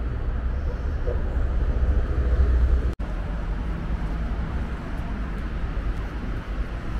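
Steady low rumble of city traffic, broken by a brief gap about three seconds in.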